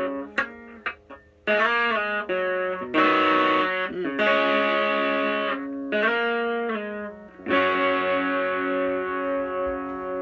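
Electric guitar through an EVH 5150III LBX-S 15-watt tube amp on its green channel, pushed by a mini Tube Screamer: a run of overdriven chords struck and held, with short breaks between them, the last chord ringing out and fading near the end.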